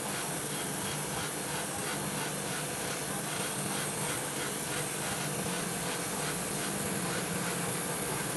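Steady whirring of a small motor, with a constant high-pitched whine, a low hum and a faint regular ticking.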